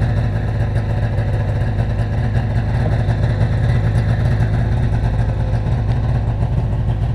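Snowmobile engine idling steadily, a constant low rumble.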